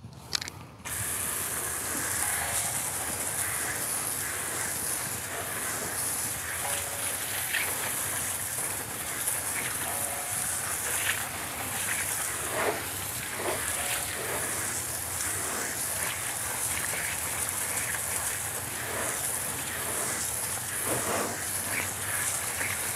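Garden hose spray nozzle hissing steadily as its jet of water hits a car's alloy wheel and tire, rinsing off the degreaser foam. The spray starts about a second in and cuts off at the end.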